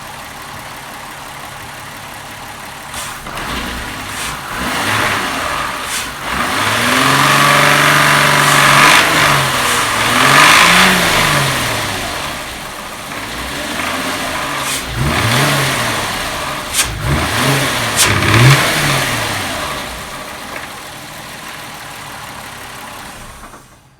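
A 12-valve VR6 engine idles, then is revved up and down several times, with a few sharp clacks among the revs. The clacking comes from a worn intake manifold shift rod.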